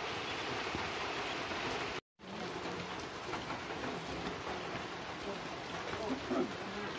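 Steady rain-like hiss that cuts out for an instant about two seconds in.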